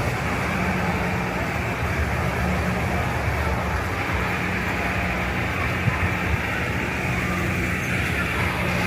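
A steady low engine-like drone with a constant hum, running evenly, over a busy noisy background.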